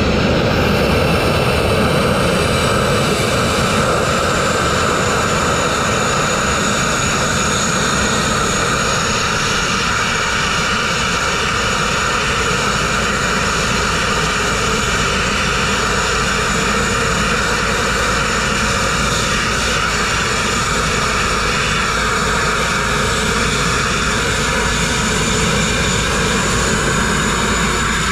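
Abrasive grit-blasting nozzle spraying steadily: a loud, continuous hiss of compressed air and grit stripping rust and paint from steel.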